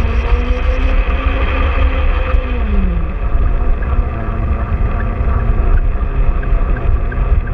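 Self-propelled garden-railway wagon carrying the camera, running along the track: a steady motor and gear whine over a heavy wheel-and-track rumble. The whine drops in pitch about three seconds in.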